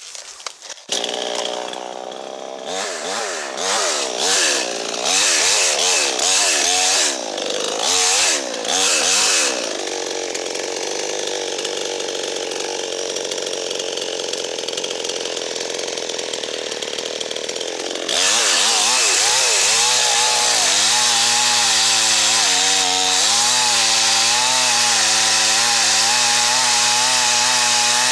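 Two-stroke chainsaw revved in short throttle bursts, then running at a steady lower speed; about two-thirds of the way in it goes to full throttle and cuts, its pitch wavering as it works through the dead ash wood.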